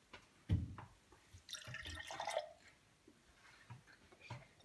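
Liquid poured from a bottle into tall drinking glasses, splashing and dripping in short spells, with a soft knock about half a second in.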